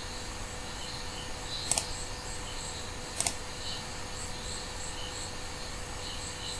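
Computer mouse clicks: a single click about two seconds in and a quick double click in the middle, over a steady hiss and the faint, regular chirping of crickets.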